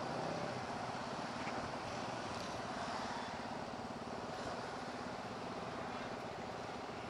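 TVS Apache 160's single-cylinder engine running at low speed while crawling in slow traffic: a steady, even drone with road noise.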